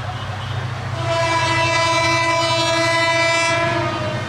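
Diesel locomotive's horn sounding one long, steady blast that starts about a second in and lasts about three seconds, over the low steady drone of the running train.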